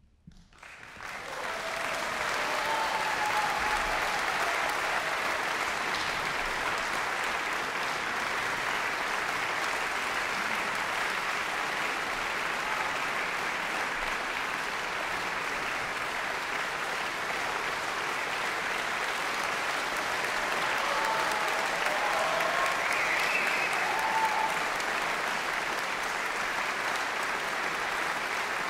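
Concert audience applauding, starting about a second in and continuing steadily, with a few faint voices in the crowd.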